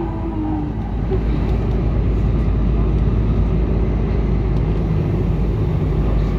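Subway train running between stations, heard from inside the car: a steady, loud low rumble of wheels on rails, with a motor whine that drops a little and fades out within the first second.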